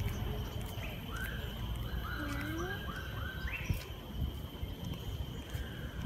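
Birds calling in an aviary: a quick run of about five short, similar notes in the middle, with a few scattered chirps around it, over a steady low background rumble.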